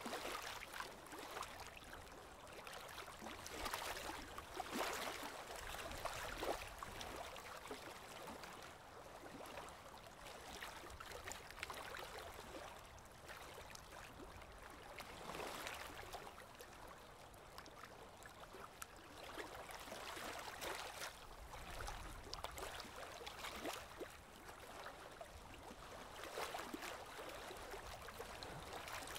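Faint, steady trickling and bubbling of aquarium water, with many small pops.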